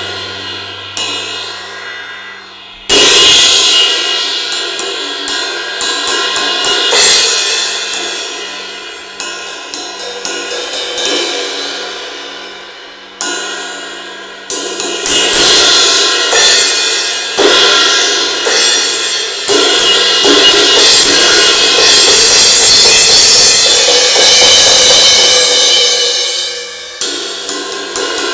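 Drum kit played live with the cymbals to the fore. Crash cymbals are struck and left ringing out, with quick hi-hat and cymbal strokes and lighter drum hits in between. A loud crash comes about three seconds in and again around thirteen seconds, and from about twenty seconds the cymbals build into a dense, steady wash that breaks off shortly before the end.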